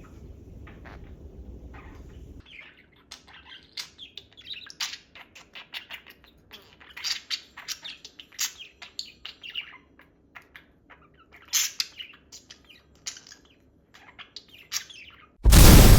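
Pet parakeets chirping in many quick, short, high calls, starting about two seconds in after a low steady hum stops. Near the end a sudden loud burst of noise cuts in.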